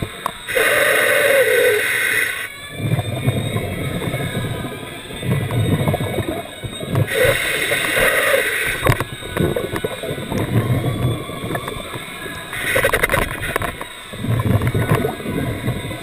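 Scuba diver breathing underwater through a regulator: three breaths, each a short hissing inhalation followed by a longer low rumble and gurgle of exhaled bubbles.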